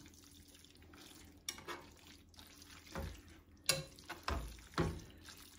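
Pasta in a creamy sauce being stirred and tossed in a frying pan with a metal spoon and fork: irregular clinks and scrapes of the utensils against the pan, starting about a second and a half in, over a faint sizzle.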